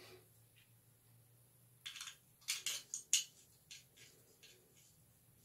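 Sharp little metallic clicks and snaps from a vintage trick padlock being handled, about eight or nine of them irregularly spaced, starting about two seconds in.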